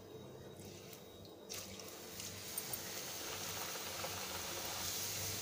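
Rolled bhatura dough slid into hot oil in a kadai: about a second and a half in it starts to sizzle, and the frying hiss builds steadily as it cooks.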